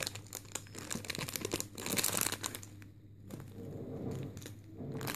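Thin clear plastic packaging bag crinkling and crackling as it is handled around a squishy toy, in quick irregular crackles with a brief lull about three seconds in.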